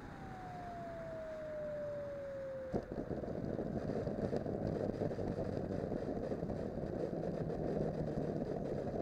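Electric ducted fan of an E-flite Viper 90 jet spooling down on the landing flare, its whine falling steadily in pitch. About three seconds in comes a sharp bump as the wheels touch down, then a steady rumble of the landing gear rolling on the asphalt runway.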